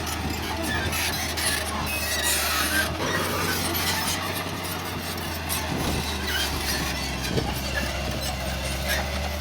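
Heavy earthmoving machinery at work: a diesel engine runs steadily under repeated high squeals and metallic clinks.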